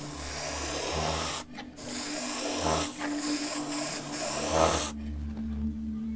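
Airbrush spraying paint: a steady hiss of compressed air. It breaks off briefly about a second and a half in and stops about five seconds in as the trigger is released.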